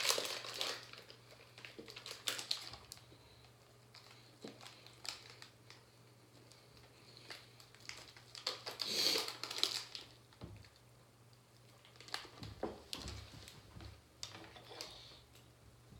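A snack's wrapper crinkling as it is handled and peeled back by hand. It comes in bursts, loudest at the start and again about nine seconds in, with quieter rustles between.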